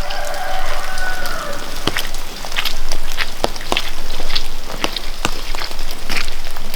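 Wood fire crackling, with sharp irregular pops over a steady hiss.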